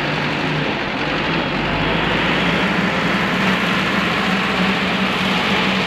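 Diesel engine of a backhoe loader running steadily, its hum stepping up in pitch about two seconds in as the machine works.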